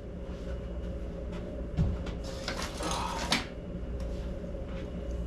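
Food containers being handled: a knock about two seconds in, then a stretch of rustling and light clatter, over a steady low machinery hum.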